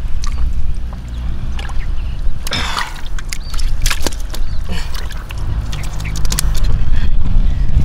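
Water sloshing and splashing in short irregular bursts over a steady low rumble.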